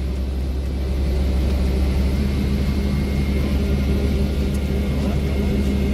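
Helicopter engine and rotor running steadily on the ground before takeoff, heard from inside the cabin: an even low drone with a faint steady high whine above it.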